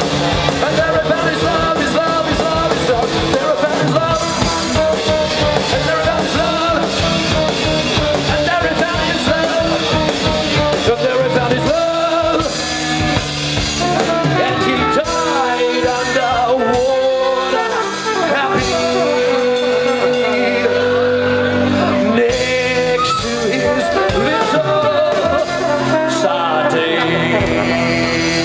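Live band playing a loud passage of the song's music, with melodic instrument lines and held notes and no words sung.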